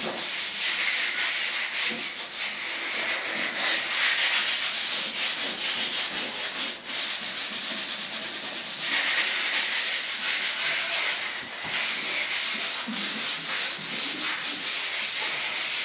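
A sheet of 80-grit sandpaper rubbed by hand over a stained and polyurethaned fiberglass door: a steady scratchy hiss of back-and-forth strokes, with a short break about seven seconds in. It is a light scuff-sanding that takes off flaking stain and poly and gives the surface tooth for primer.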